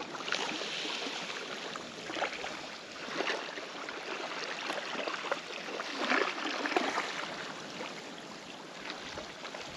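Water lapping and splashing, a steady wash broken by small irregular splashes.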